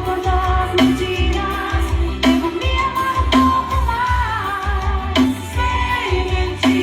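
A song with singing and a heavy, pulsing bass line, played loud through a car's aftermarket sound system.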